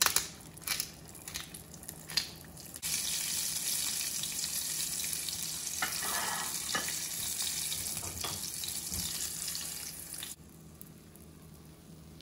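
A crappie fillet frying in oil in a nonstick pan: loud, even sizzling starts suddenly about three seconds in and stops abruptly near the end. A few short taps come before it.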